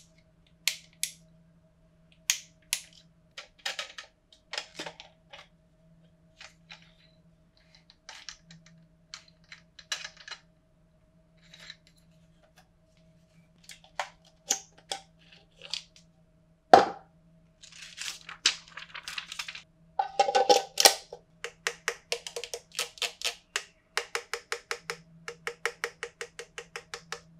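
Handling noise from an Amaran 200x LED light: scattered plastic and metal clicks and taps as it is turned over, with one sharp knock about midway and a brief rattle after it. Then comes a fast, even run of clicks, about five a second, as its parts are worked. A faint steady hum sits underneath.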